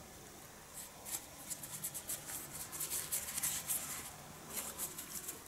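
Rustling and small irregular crackles of Milde Premium Sensitive three-ply toilet paper being handled and pulled between fingers, busiest from about a second in to about four seconds in.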